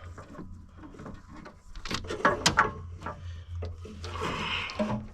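Hydraulic hoses being handled and fed through a machine's frame: rubbing and knocking, with a few sharp clicks about two seconds in and a scraping rub near the end, over a steady low hum.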